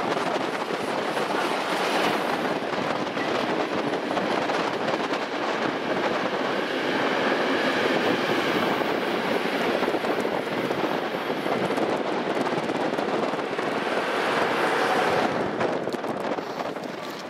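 Steam-hauled passenger train rolling past, its coaches running along the rails with a steady, dense rumble that dies away near the end as the train moves off.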